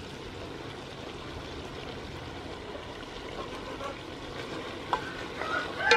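Chicken curry sizzling in an aluminium pot as it is stirred with a wooden spoon: a steady hiss, with a single knock near the end.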